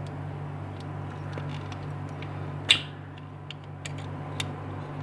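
Small plastic clicks and creaks as a 1/76 Turbo Racing RC car chassis is pressed into a slightly too narrow plastic toy body shell, with one sharp plastic snap about two and a half seconds in. A steady low hum runs underneath.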